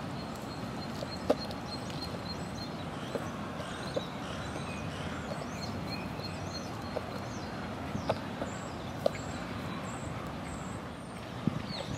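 Carrion crows' beaks pecking at a small plastic food box: several sharp single taps spread irregularly, the loudest about a second in. Under them a steady background hum, with small birds chirping faintly.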